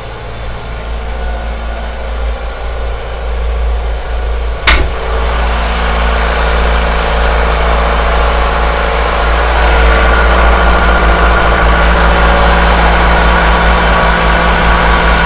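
Boat's inboard diesel engine running steadily, heard from inside its machinery space. A sharp click about five seconds in as an access door is opened, after which the engine is louder.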